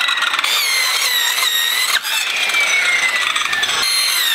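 Circular saw whining as it cuts through a rattan furniture frame, its pitch dipping and recovering as the blade bites in. In the second half the pitch slides slowly downward as the blade loads up in the cut.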